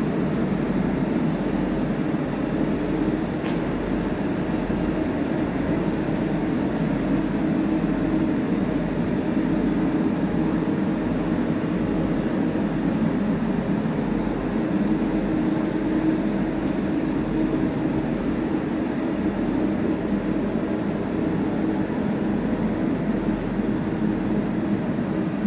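Spray booth ventilation fan running steadily: a constant airy hum with a low steady tone.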